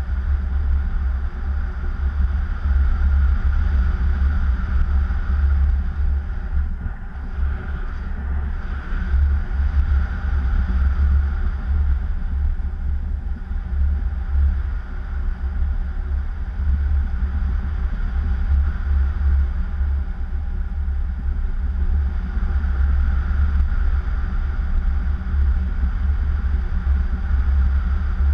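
Wind noise from the airflow over a paraglider in flight buffeting the action camera's microphone: a loud, uneven low rumble that swells and eases without a break.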